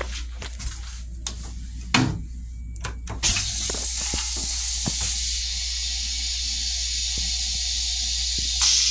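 M7 railcar toilet flushing: after a few clicks and a thump, a loud steady hiss of the rinse starts about three seconds in and runs on, swelling again near the end.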